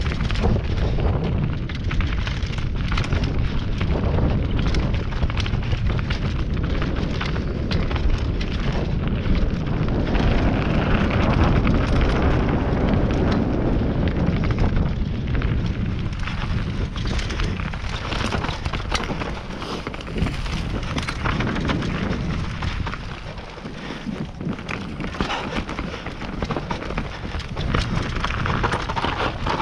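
Mountain bike ridden fast down a dirt singletrack: tyres rumbling and crunching over the earth, with the bike rattling in dense, clicky noise. It eases off for a few seconds about three-quarters through, then picks up again.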